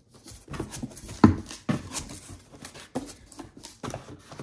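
Unboxing a computer: a cardboard box and its packaging being handled, giving irregular knocks, clicks and rustling as the accessories are taken out. The loudest thump comes a little over a second in.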